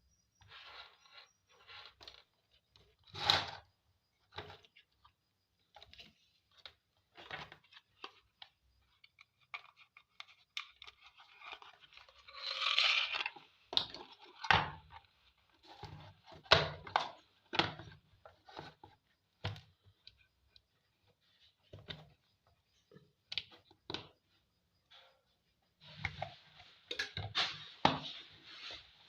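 Irregular clicks and knocks with a brief rustling scrape about twelve seconds in, as of small objects being handled and set down.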